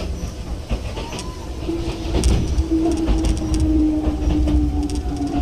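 Enoden electric train running along the track, heard from the cab: a low rumble with wheels clicking over rail joints. From about two seconds in, a steady whine joins and slowly falls in pitch.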